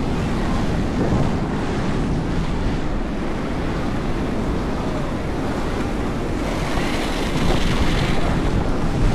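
Wind buffeting the microphone at speed over a steady rolling rumble from roller-skate wheels on tarmac. A brighter hiss swells for a couple of seconds past the middle.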